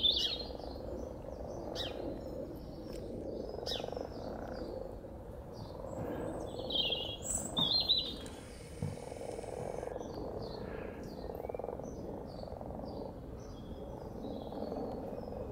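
Mating chorus of common frogs in a spawning mass: continuous low croaking from many frogs at once. Short high bird chirps break in near the start and again about seven to eight seconds in.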